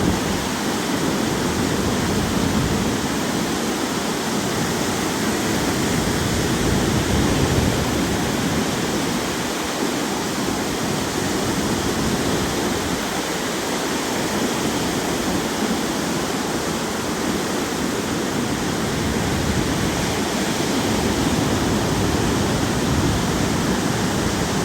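Strong wind buffeting the microphone with a gusty low rumble, over the steady rush of waves breaking on a large lake's shore.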